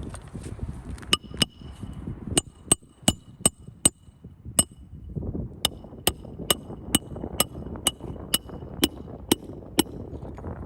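A hand hammer driving nails, about seventeen sharp ringing strikes in quick runs of two to three a second with short pauses between runs. This is the nailing-down of a replacement roofing piece.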